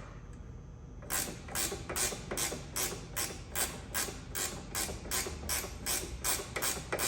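Hand ratchet wrench swung back and forth, starting about a second in with about three or four clicking strokes a second, running in a suspension bolt.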